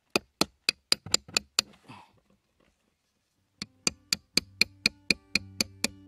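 A metal nail being hammered into the floor of a cardboard box: quick, sharp knocks at about four a second. One run of about seven strikes, a pause of about two seconds, then a second run of about ten.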